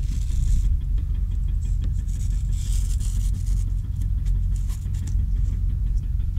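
Razor blade cutting and scraping excess cured expanding spray foam off a door seal, in short hissy strokes about the first second and again around the middle, over a steady low rumble.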